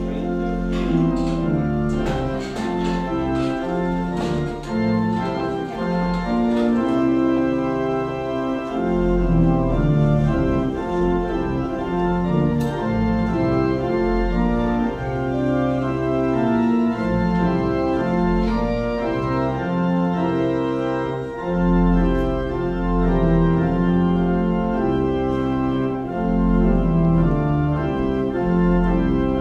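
Organ music: slow, sustained chords over low bass notes.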